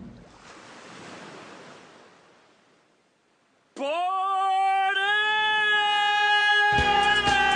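A rushing noise fades away over about three seconds and there is a moment of quiet. Then a long, steady sung note starts suddenly, with a quick scoop up in pitch at its onset. Music with a bass beat joins it near the end.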